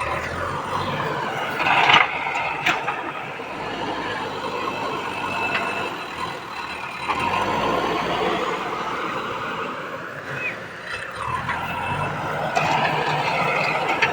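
JCB 3DX backhoe loader's diesel engine running as the machine works, its level rising and falling, with a brief loud high-pitched noise about two seconds in.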